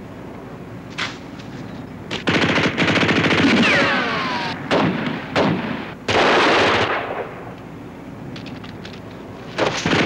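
Automatic gunfire from Thompson submachine guns in a firefight: a single shot about a second in, then long rapid bursts broken by short ones, a lull, and firing again near the end. A short falling whine cuts through the first long burst.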